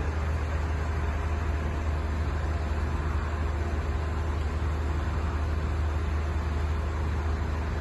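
Heavy construction machinery's diesel engine running steadily: a low rumble that comes up just before and holds, under a steady hiss.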